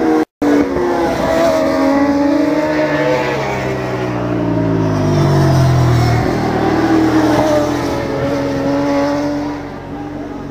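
Racing sport-bike engines from a supersport and superbike field going through a corner, several bikes at once. Their engine notes fall and rise as they brake and accelerate. One bike passes close about six seconds in, and the sound fades near the end. The sound cuts out completely for a moment just after the start.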